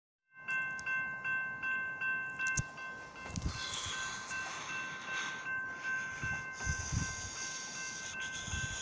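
Railroad grade-crossing warning bell ringing steadily at about three strokes a second, a signal that a train is approaching. Intermittent low rumbles run underneath.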